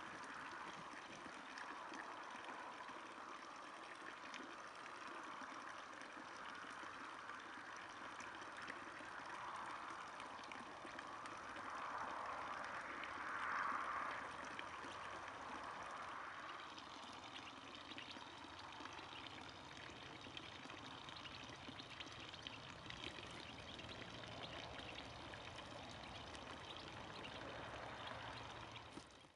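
Water splashing and trickling steadily into a small pool, swelling a little about halfway through.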